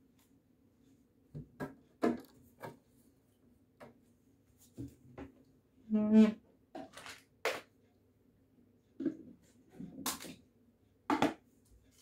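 Scattered knocks and clicks of things being handled, with one short pitched squeak about six seconds in, over a faint steady hum.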